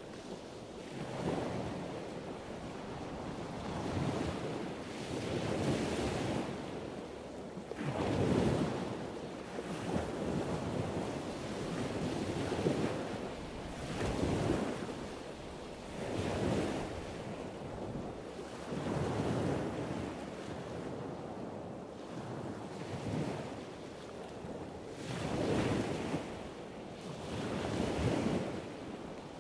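Ocean surf breaking on a beach, swelling and fading every two to three seconds, with wind on the microphone.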